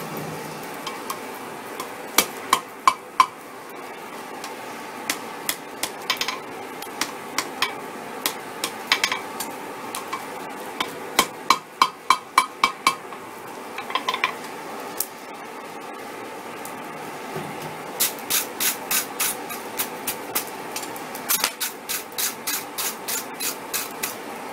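Hand hammer forging a red-hot mild-steel chain link on an anvil, including over the horn: bursts of quick ringing blows, about three or four a second, separated by pauses.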